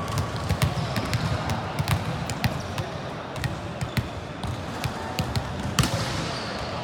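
Volleyballs being struck and bouncing on a hard gym floor: a string of irregular sharp smacks and thuds, the loudest about six seconds in, over players' voices echoing in the hall.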